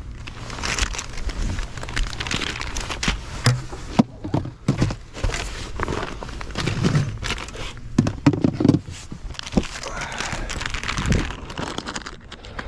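Irregular knocks, scrapes and rustling as a just-landed bass is handled on a bass boat's deck, with a few heavier thumps midway.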